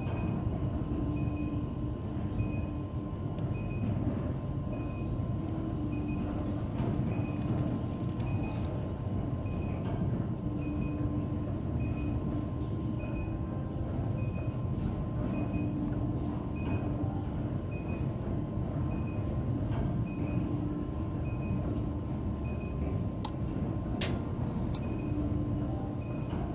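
Aluminum tube induction welding machine running steadily: a continuous mechanical hum and rumble with a constant thin high tone and a faint short beep repeating a little faster than once a second.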